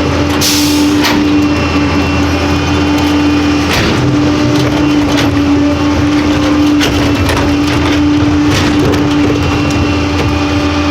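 Rear-loading garbage truck with a CCC chassis and a 25-yard Pak-Mor body running, a steady whine over the engine rumble. A short hiss comes about half a second in, with a few knocks.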